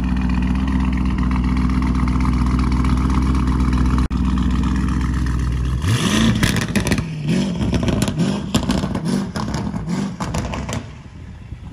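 Lamborghini Urus's twin-turbo V8 idling steadily, then revving up about six seconds in as the SUV pulls away, with a rapid string of sharp exhaust pops and crackles. The sound fades as it drives off near the end.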